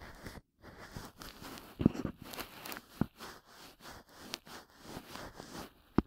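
Ear pick's bonten (fluffy cotton puff) rubbed and brushed against a binaural microphone's ear: soft, irregular scratchy rustling, with a few low thumps, about two and three seconds in and a louder one near the end.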